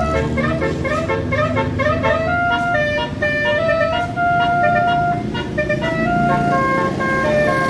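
A tour bus's basuri telolet multi-tone air horn playing a melody: a quick run of short notes, each swooping slightly up at its start, then longer held notes.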